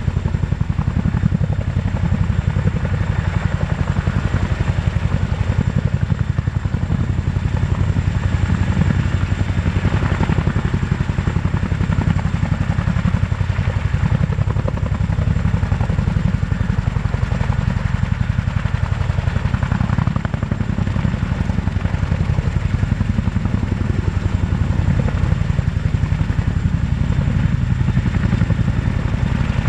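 Boeing CH-47F Chinook tandem-rotor helicopter hovering, its two rotors beating in a fast, steady, deep chop with a thin high whine over it.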